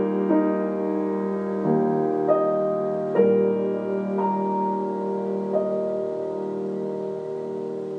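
Solo piano playing slowly and softly: single notes and chords struck over a held bass, the last about five and a half seconds in, then left ringing and fading away as the piece ends.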